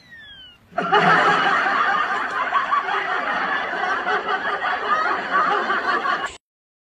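Several people laughing hard, starting about a second in and cutting off abruptly near the end. A falling whistle, like a slide-whistle sound effect, dies away at the start.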